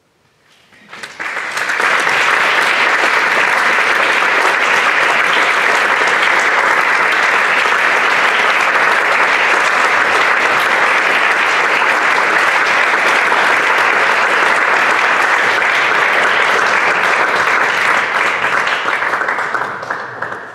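Audience applauding, starting about a second in, holding steady, and tapering off near the end.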